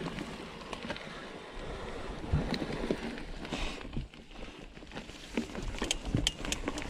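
Mountain bike rolling down rough singletrack: tyre noise on dirt and roots with a low rumble, sharp clicks and rattles from the bike that come thicker near the end, and wind rush on the microphone.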